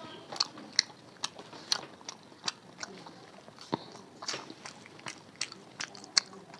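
Close-miked mouth sounds of a person chewing a rice-and-curry meal: wet, sharp clicks and smacks, irregular, about two or three a second.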